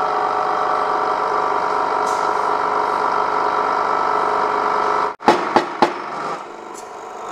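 Hydraulic press pump humming steadily as the ram forces a cylinder liner into an engine block, cutting off suddenly about five seconds in. Three sharp cracks follow as the liner jumps down, snatching on retaining compound that has started to set.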